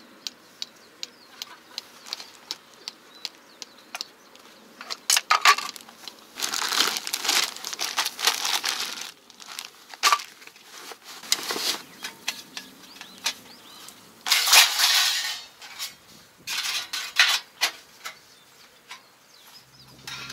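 Handling noise: a run of light clicks, about two or three a second, then several bursts of crinkling rustle, the loudest about two-thirds of the way through.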